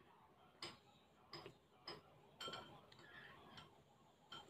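Faint eating sounds from a mouthful of spicy instant noodles: a string of small sharp clicks of chewing and lip-smacking, about six over the few seconds.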